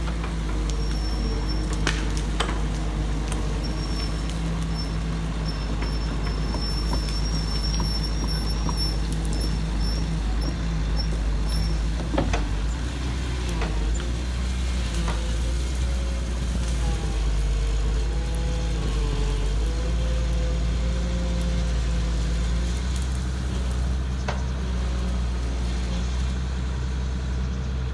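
Excavator engine running steadily under load, with a thin high whine over it during the first half and a wavering mid-pitched tone in the middle.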